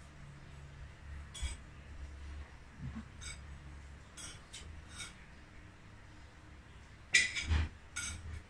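Spoon and fork clinking against a plate while eating: a handful of separate clinks, the loudest a quick cluster near the end.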